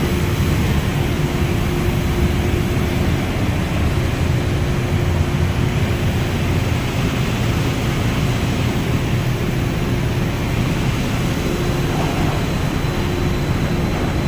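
Industrial rotary sawdust dryer plant running: a steady, loud machinery noise with a low hum and a faint steady tone above it.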